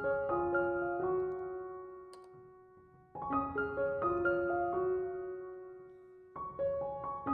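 Background music: a gentle piano phrase of rising then falling notes, each note struck and left to fade. The phrase repeats about every three seconds.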